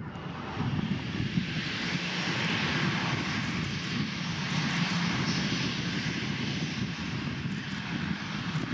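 Boeing 737-800 jet airliner's CFM56 turbofan engines running at low taxi thrust as it slowly lines up on the runway: a steady jet hiss over a low hum.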